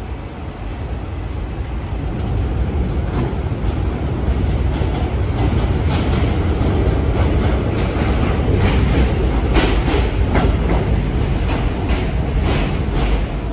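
New York City subway train running on the tracks, its rumble growing louder over the first few seconds, with wheels clacking over rail joints from about 3 seconds in and more often toward the end.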